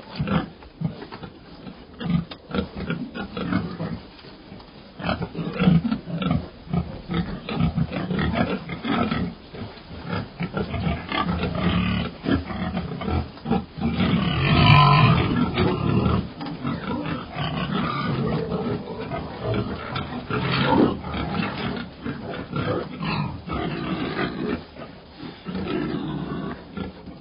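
Pigs grunting and squealing in a steady irregular stream, with a louder, drawn-out squeal about halfway through.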